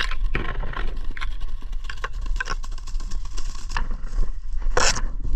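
Footsteps and brush scraping through dry fallen leaves and twigs, a run of crackles and snaps over a low rumble on the microphone. A brief, sharper noise comes near the end.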